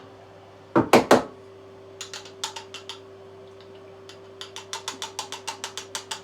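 Espresso prep at the grinder: three loud knocks in quick succession, then a regular run of light mechanical clicks at about four to five a second, over a steady hum.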